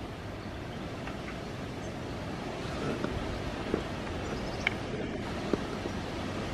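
Wind noise on the microphone, a steady rush, with a few sharp clicks in the second half.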